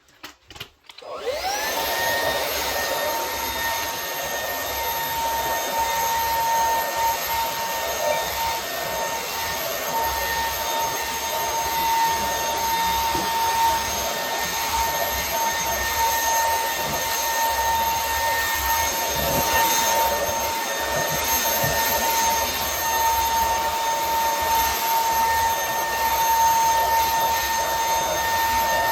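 Wyze cordless stick vacuum's brushless motor switched on after a few clicks. It spins up with a rising whine over about a second, then runs steadily: a high, even whine over the rush of air.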